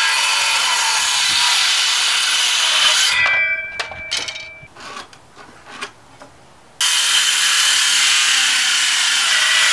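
DeWalt circular saw crosscutting reclaimed wooden boards square at the ends, twice: a cut of about three seconds, a brief whine with a few clicks and knocks after it, then a second cut starting about seven seconds in.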